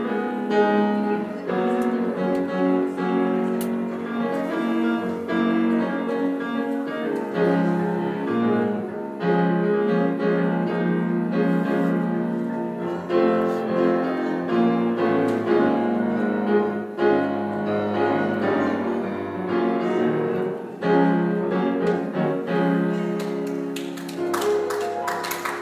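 Grand piano playing slow, sustained chords. Applause starts near the end.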